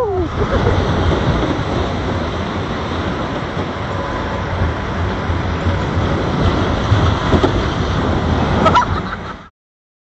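Small steel family roller coaster train running along its track, heard from on board as a steady rumble, with a short high squeal near the end. It cuts off suddenly about nine and a half seconds in.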